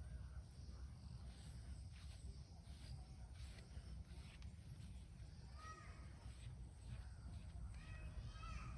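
Faint outdoor background: a steady low rumble, with a bird calling briefly about six seconds in and again near the end.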